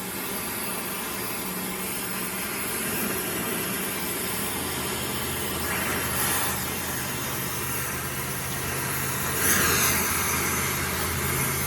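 An engine idling steadily, its low hum growing fuller about five seconds in, over a steady hiss. Louder rushing bursts come about six seconds in and again near the end.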